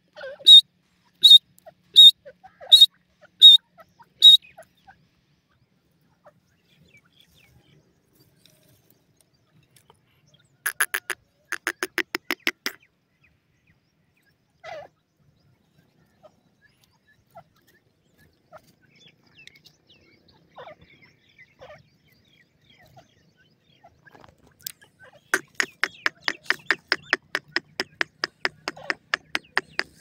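Grey francolin hen calling. A run of six sharp, high calls about two-thirds of a second apart opens. After a quiet stretch comes a two-second burst of rapid notes, and a longer fast rattling series of notes starts near the end.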